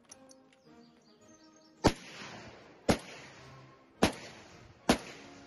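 Gewehr 43 semi-automatic rifle in 7.92 mm Mauser firing four shots about a second apart, each shot sharp with a long echoing tail, over march music.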